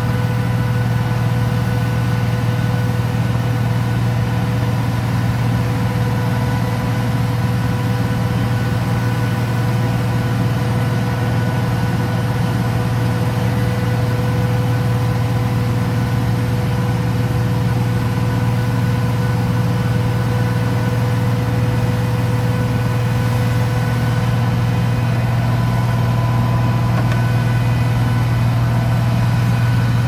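Concrete mixer truck's diesel engine running at a steady speed: an unchanging low drone with a steady whine above it, with no revving.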